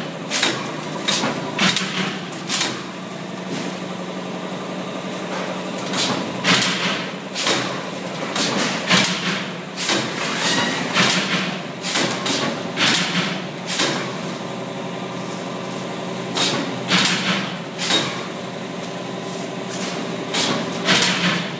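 Semi-automatic box stitching machine running: a steady motor hum under runs of sharp clacks as the stitching head drives wire stitches into corrugated cardboard, coming in bursts with short pauses between them.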